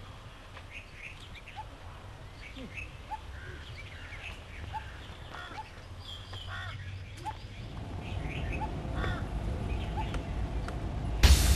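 Many small birds chirping and calling in short scattered notes over a quiet background. A low rumble slowly swells in the second half, and a loud musical hit comes in just before the end.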